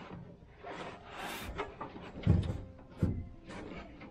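Irregular rustling and knocks from someone moving about in a small aluminium boat and handling a fishing rod, with two dull thumps against the hull about two and three seconds in.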